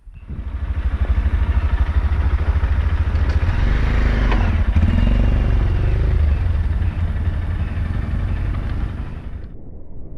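Motorcycle engine running under way, a rapid low pulsing with road and wind noise over it; it starts suddenly and cuts off abruptly near the end.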